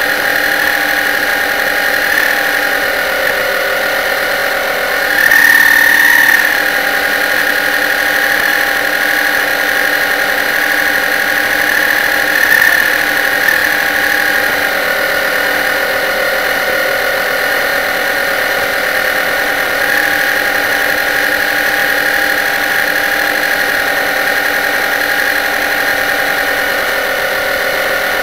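RC model boat's motor running steadily with a high-pitched whine, picked up by a camera mounted on the boat. The whine swells louder for about a second around five seconds in, and briefly again near twelve seconds.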